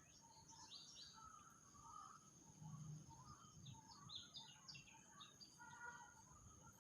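Faint, scattered chirps and short calls of several small birds, with a steady high-pitched tone in the background.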